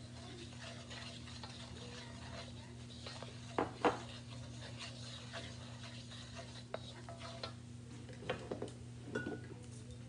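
Wooden spoon stirring a caramelizing mixture in a steel wok, scraping the pan with a few sharp knocks against its side, the loudest two about four seconds in. A steady low hum runs underneath.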